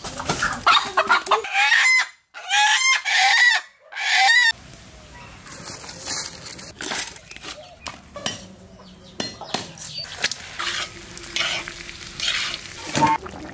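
A country chicken squawking loudly in several separate calls. About four and a half seconds in they stop, giving way to quieter scraping and clatter of a spatula stirring food in an iron pan.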